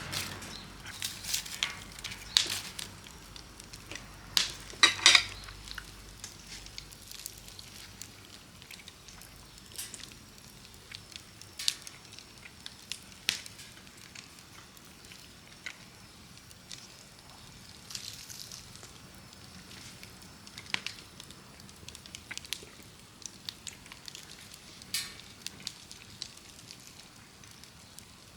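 Wood fire crackling, with sharp pops at irregular intervals over a faint hiss; a quick run of the loudest pops about five seconds in.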